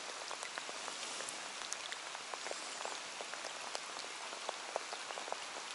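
Steady rain falling on a lake's surface: an even hiss with many scattered sharp ticks of individual drops.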